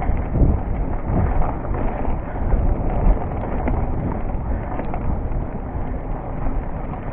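A full-suspension mountain bike rolls fast over a dirt singletrack, heard through a chest-mounted action camera. There is a continuous rumble of tyres on the trail, irregular knocks and rattles as the bike goes over bumps, and wind on the microphone.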